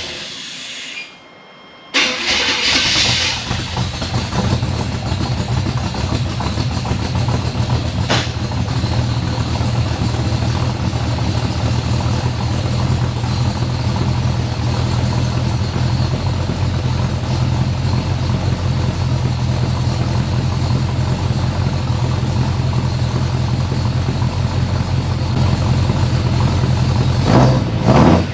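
Chevrolet Performance ZZ350 small-block V8 with a newly installed Howards hydraulic roller cam firing up about two seconds in and settling into a steady idle, a little louder near the end. Its Edelbrock carburetor has not yet been adjusted.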